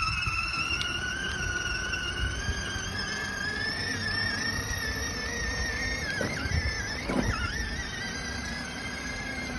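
Electric drive motors and gearbox of a child's battery-powered ride-on toy Jeep whining steadily as it drives along, the pitch creeping slowly upward and dipping briefly twice about six and seven seconds in. A low rumble of its wheels rolling on the road runs underneath.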